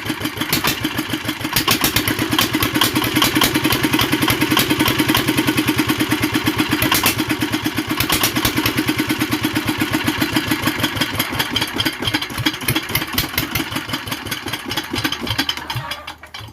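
Single-cylinder R180 diesel engine running at idle with a steady, even, rapid chugging, which dies away just before the end.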